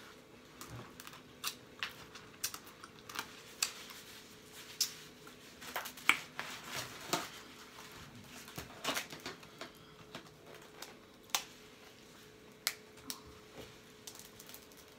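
Blue crabs being eaten close to the microphone: irregular sharp clicks and cracks of shell being broken and picked apart, mixed with wet mouth smacking, the loudest cracks near the middle.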